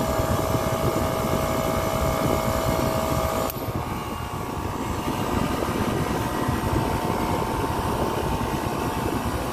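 Copeland digital scroll compressor running with a steady hum. About three and a half seconds in, a sharp click comes as its unloading solenoid valve switches, and the tone changes and drops a little as the compressor changes capacity. The shift sounds like a fault but is the normal loaded and unloaded cycling of a digital scroll.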